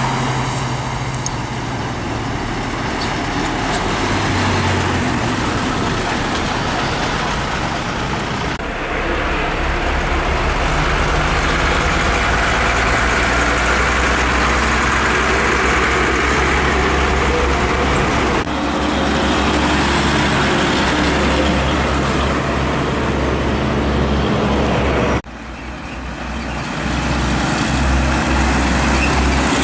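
Heavy diesel trucks passing close by, one after another: engines running under load with tyre and road noise. The sound changes abruptly three times as one pass gives way to the next.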